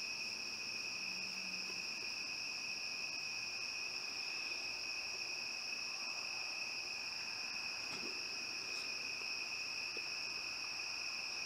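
Steady, continuous high-pitched chirring of crickets at night, holding the same pitch throughout.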